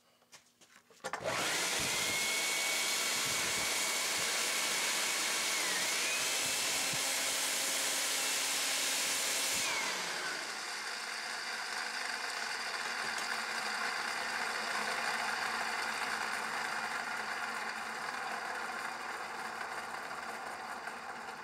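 A homemade tin-can turbo jet engine's fan spins with a loud, steady rush of air and a high whine, starting about a second in. The whine steps up in pitch about halfway through its run, then drops away near the middle, and the rush carries on more softly after that.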